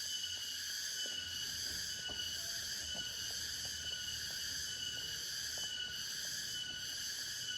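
Tropical forest insect chorus: several layers of steady high buzzing, one of them pulsing about once a second, with faint scattered clicks and light knocks underneath.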